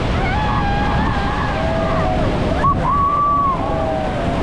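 Steady, loud rush of water with wind buffeting the microphone, and voices calling out faintly over it.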